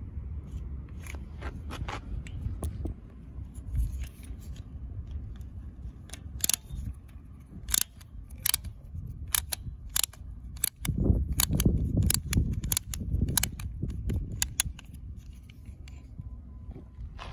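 Sharp plastic clicks and snaps from a toy propeller launcher gun being handled while its red flying disc is fitted onto the spindle. The clicks come irregularly and are thickest in the middle, over a low rumble.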